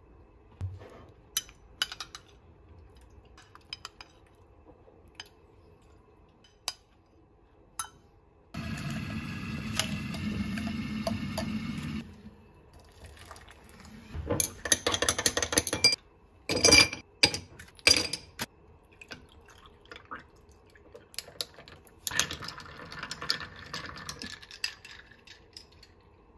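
Kitchen glassware being handled on a countertop: scattered light clinks, a steady noise lasting about three and a half seconds midway, then a quick run of sharp glassy clinks. Near the end, liquid is poured into a drinking glass.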